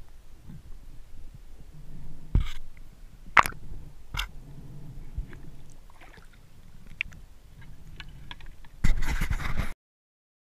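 Muffled underwater sound heard through a submerged camera housing: a low rumbling with several sharp clicks and knocks, then a louder rush of noise near the end before the sound cuts off abruptly.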